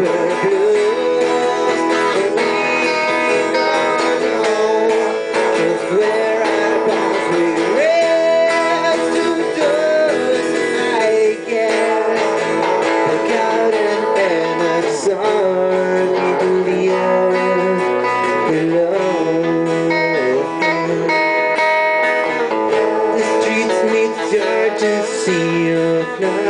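Live band playing rock music: a strummed acoustic guitar and an electric guitar, with a man singing over them at times.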